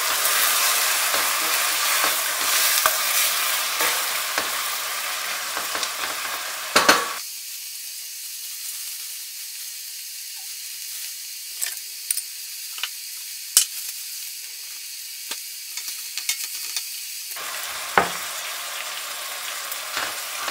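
Chopped onions and tomato sizzling in olive oil in a stainless steel pan, stirred with a wooden spoon that scrapes and taps against the pan. About seven seconds in the sizzle drops to a quieter, duller hiss with scattered taps, and it comes back fuller near the end.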